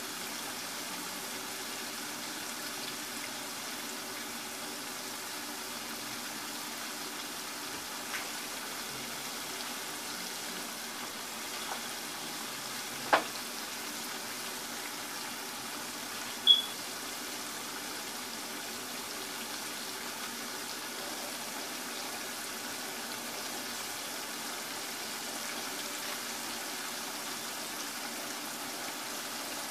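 Chicken gizzards deep-frying in hot oil in a skillet: a steady sizzle and bubbling, with a few sharp pops along the way.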